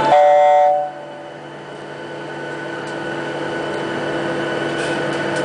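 A loud falling two-note tone, cut off under a second in. Then the steady hum of a Boeing 737 airliner cabin, with several fixed whining tones, growing gradually louder.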